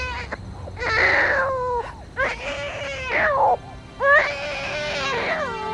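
Crying in long, wavering wails that break off and start again several times, over background music.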